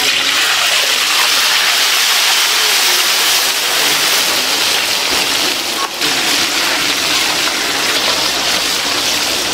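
A whole fish deep-frying in a wok of hot oil: a loud, steady sizzle that starts suddenly as the fish goes into the oil.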